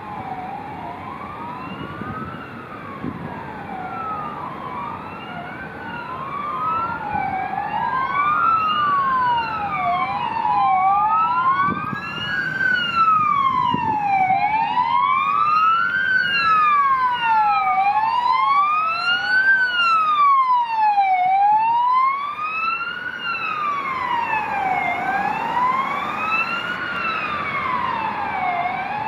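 Several police sirens wailing at once, each slowly rising and falling out of step with the others, over road traffic. The sirens grow louder as the escort approaches and passes, then ease off slightly near the end.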